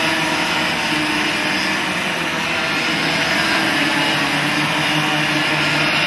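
A pack of racing karts passing on track, many kart engines running together in a steady, dense drone.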